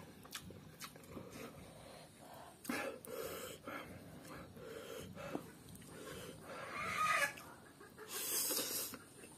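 A person slurping and chewing instant noodles eaten with chopsticks: a few separate slurps, the longest about eight seconds in.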